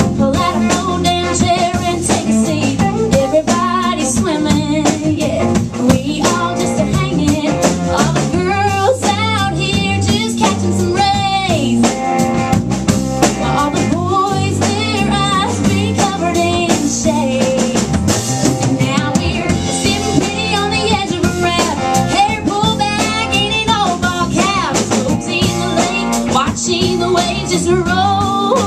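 Live band performance: a woman singing a song into a microphone over electric guitar and a drum kit keeping a steady beat.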